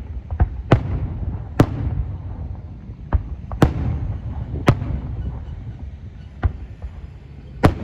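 Aerial fireworks shells bursting overhead: about eight sharp booms at irregular intervals, with a low rolling rumble between the bangs.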